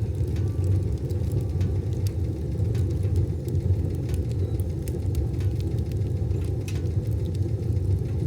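Wood stove fire burning: a steady low rumble with scattered sharp crackles and pops throughout.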